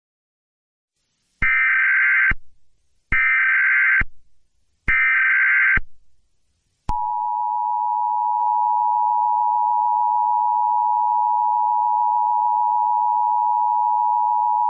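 Emergency Alert System alert signal. After a second and a half of silence come three short bursts of warbling digital data tones (the SAME header), each just under a second. About seven seconds in, the steady two-tone attention signal begins.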